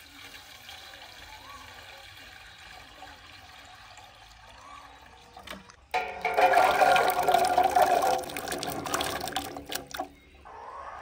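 Water gushing into a container of lasoora (Assyrian plums) as they are washed, starting suddenly about halfway through, running loudly for about four seconds, then dying away.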